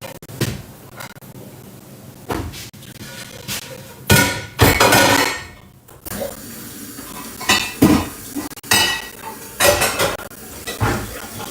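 Kitchenware being handled, clattering and clinking in a series of separate knocks, with a louder, noisier stretch from about four to six seconds in.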